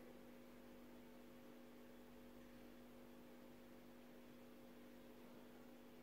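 Faint steady hum from a running Panasonic CS-LN9WKJ mini-split air conditioner's indoor unit.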